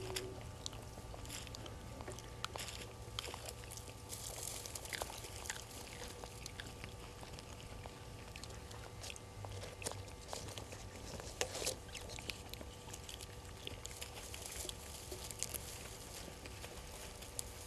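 Dry leaf litter and twigs crackling and rustling in scattered small clicks as a vervet monkey forages close by, picking at the ground and eating. A steady low hum runs underneath.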